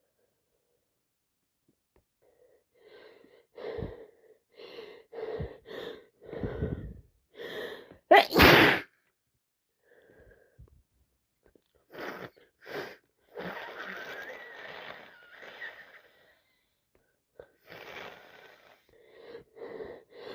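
A woman with a heavy head cold sneezing. A run of short catching breaths builds up to one loud sneeze about eight seconds in. Breathy, snuffly noises follow, and near the end more catching breaths start building toward the next sneeze.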